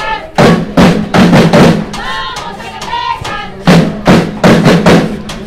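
Loud music with heavy, uneven drum hits and a melody running over them.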